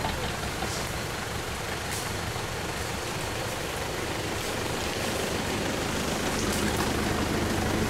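Off-road 4x4 trucks' engines idling with a steady low rumble that grows a little louder near the end.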